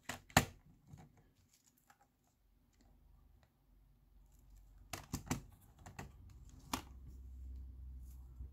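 Handling noise from an opened cassette Walkman and its circuit board being turned over in the fingers: a few sharp plastic and metal clicks about half a second in, another cluster around five to seven seconds in, and a low rumble near the end.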